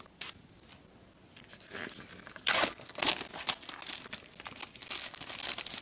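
Clear plastic shrink-wrap film being torn and crinkled off a small cardboard box, in irregular crackling bursts that start about a second and a half in and are loudest around the middle.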